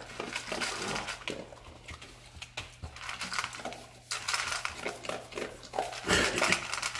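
A dog eating from a stainless steel bowl: irregular clinks and scrapes of the metal bowl as its muzzle works in it, mixed with chewing, louder near the end.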